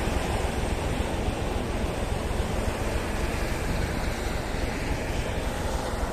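Steady rushing noise of wind on the microphone, mixed with the rumble of a rail vehicle rolling past close by.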